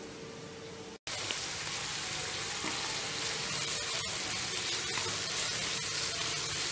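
Sliced onions, green chillies and curry leaves sizzling in hot oil in a frying pan as they are stirred, a steady crackling hiss. For the first second there is only a quieter steady hiss with a faint hum, cut off abruptly before the sizzling starts.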